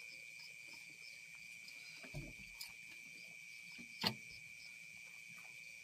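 Faint, steady, high-pitched chirring of insects in the background, with a soft low thump about two seconds in and a single sharp click about four seconds in.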